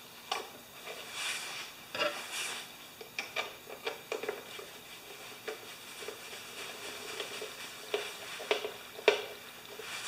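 Irregular light clicks, taps and rustling from hands handling parts on a Briggs & Stratton mower engine, with a few sharper knocks about two seconds in and near the end.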